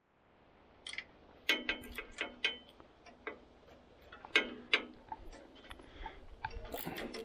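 Irregular sharp metallic clicks and clinks of a hand wrench working the bolts on a sawmill's guides as they are tightened.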